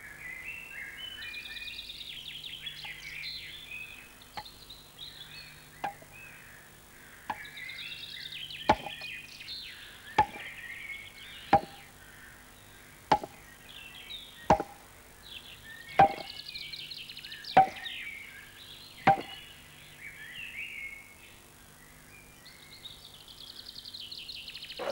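An axe chopping into wood with a steady stroke about every second and a half, about eleven blows, faint at first and louder from about nine seconds in, stopping near twenty seconds. Birds chirp and sing throughout.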